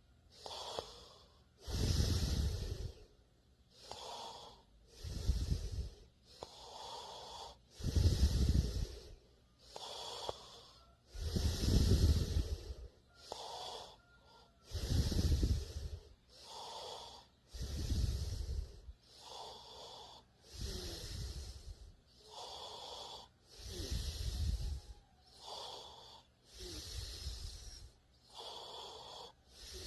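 A person snoring steadily, about one breath cycle every three seconds: a loud, low, rough snore, then a softer, airier, hissing breath.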